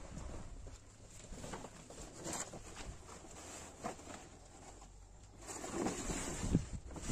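A woven plastic tarp rustling and crinkling as it is handled and pulled back, louder in the second half, with a few soft footsteps before it.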